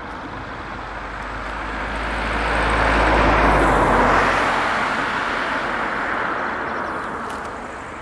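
A road vehicle passing by: its noise and low rumble build to a peak about three to four seconds in, then fade away.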